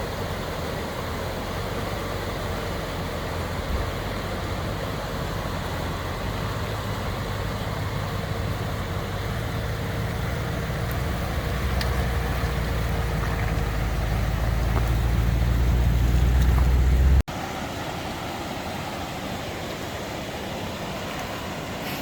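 An FJ80 Land Cruiser with a swapped-in 6.0 LS V8 driving, a steady low engine drone under road noise. The drone builds louder over about nine seconds, then breaks off abruptly a few seconds before the end into a quieter, even rushing noise.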